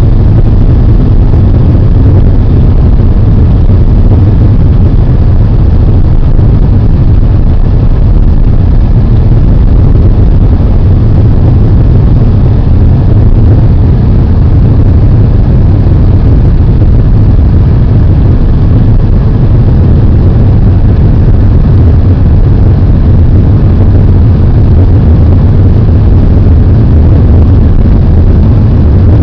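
Car driving at a steady pace: a loud, unchanging low rumble of engine and road noise.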